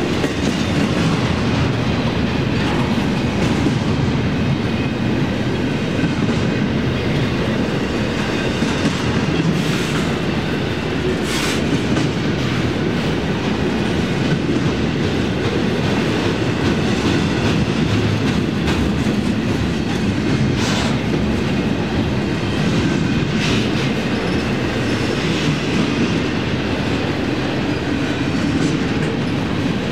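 Union Pacific intermodal freight train's cars rolling past, a steady loud rumble of wheels on rail with rhythmic clickety-clack and a few sharp clicks.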